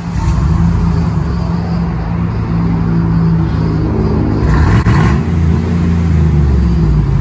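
GMC Sierra V8 exhaust running with a deep rumble through a newly fitted aftermarket muffler, with all three catalytic converters still in place. There is a short rev of the throttle around the middle.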